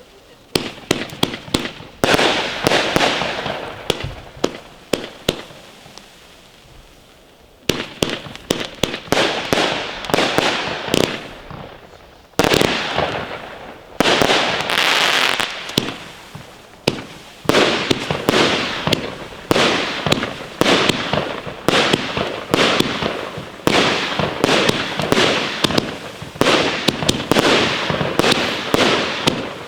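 Consumer firework batteries firing: the Lesli Mohawk cake goes off in a dense run of sharp shots and crackling bursts, pauses for a few seconds, then fires again. About halfway through, the Funke Fajerwerki Weissblinker Dahlien (white strobe dahlia) cake takes over, firing steady shots about once a second, each with a crackling tail.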